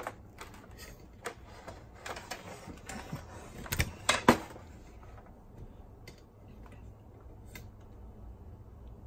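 Handling noise from the opened boombox and its mains cord: scattered clicks and rustling, with two sharp knocks about four seconds in, the loudest sounds, then only a few faint ticks.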